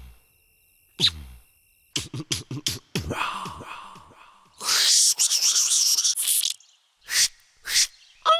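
A man making a quick series of sound effects with his mouth, beatbox-style: a short grunt, a rapid run of clicks, a long hissing whoosh in the middle, then a few short sharp bursts near the end, one sliding down in pitch.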